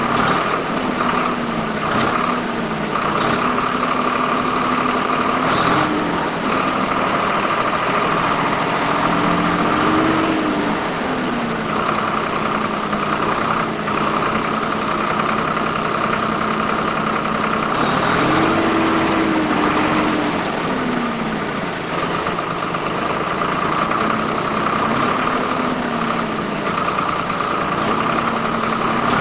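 Small DC electric motors of a model tractor and its rotary tiller running with a steady high whine, a lower motor tone drifting up and down in pitch several times.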